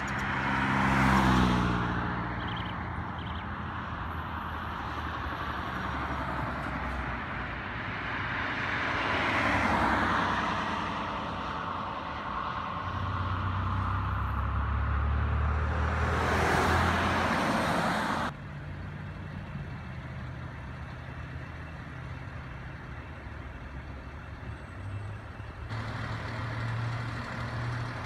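Fire truck diesel engines driving past, the noise swelling and fading with each pass over a heavy engine rumble. About two-thirds of the way through it drops suddenly to a quieter, steady engine rumble.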